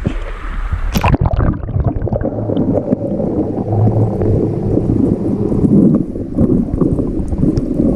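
Stream water splashing and gurgling right at the microphone, with a sharp splash about a second in. The sound is muffled, with little high end.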